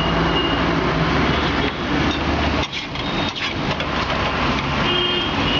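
Street traffic, with a motor vehicle engine running close by.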